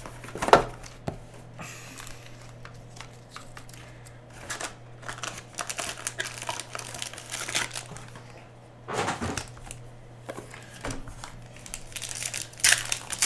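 Foil-wrapped trading card packs and a cardboard hobby box being handled, giving irregular crinkling and rustling with sharp crackles. A louder burst near the end fits a foil pack being torn open. A steady low hum runs underneath.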